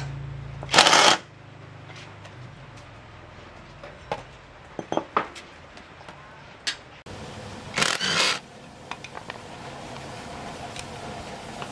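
Cordless impact wrench on the bolts of a motorbike rear sprocket: the motor runs, then hammers in two short loud bursts, about a second in and again about eight seconds in. Between the bursts there are light metal clinks as parts are handled.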